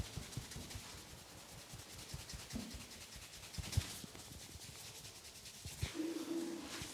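Hands rubbing and patting a person's scalp and hair during a head massage: a brushing, rubbing sound broken by soft thumps, most of them in the first four seconds.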